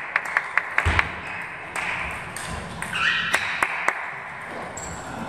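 Table tennis ball bouncing, a quick run of sharp ticks about four a second, ending with a thud about a second in. After a short squeak, a rally starts with a few single ball strikes on bat and table.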